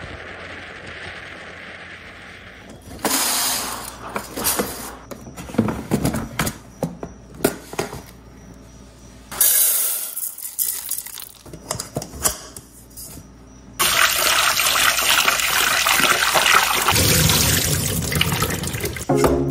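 Dry rice grains falling from a rice dispenser into a rice-cooker's inner pot, a rattling patter that comes in irregular bursts with clicks. From about two-thirds of the way in, a kitchen tap runs in a steady rush as the rice is rinsed in a steel sink, the water draining off through a plastic rice-washing strainer. Before the rice, a few seconds of steady wind and road noise from a motorbike ride.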